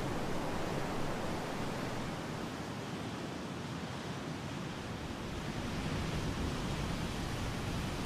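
Steady rushing noise with no tone or beat, easing slightly midway and then returning.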